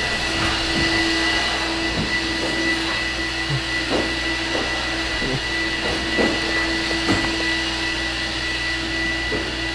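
Vacuum cleaner running steadily, a constant whirring drone with a steady whine.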